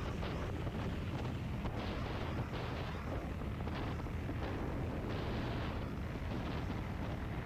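Dirt bike riding over a rough dirt road: a steady low engine and road rumble with wind buffeting the microphone.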